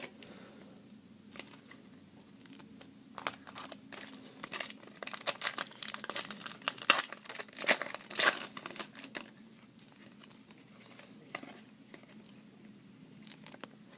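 A foil trading-card pack wrapper crinkling and tearing as the pack is opened, with scattered crackles and rustles that come thickest in the middle.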